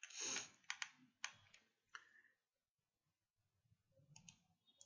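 Near silence, broken by a short soft noise at the start and a handful of faint, brief clicks in the first two seconds, with two or three more near the end.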